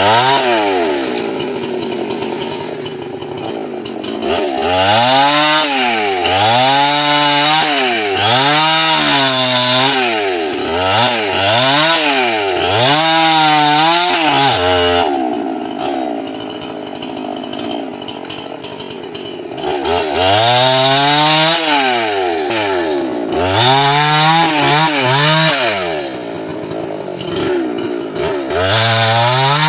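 Two-stroke chainsaw cutting tree limbs. The engine revs up and drops back over and over, about once a second, with a steadier, lower-pitched stretch of running in the middle.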